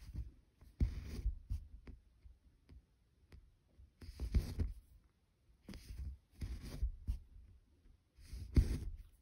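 Cross-stitch needle and floss being drawn through 25-count Zweigart fabric: about six short scratchy pulls, irregularly spaced, with quiet between them.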